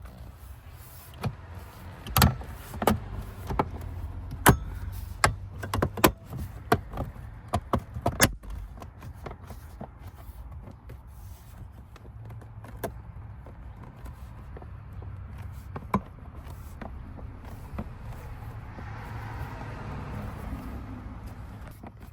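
Sharp clicks and knocks of hard plastic console parts being handled and pressed into place on a truck's center console lid, most of them packed between about two and eight seconds in, then fewer and quieter.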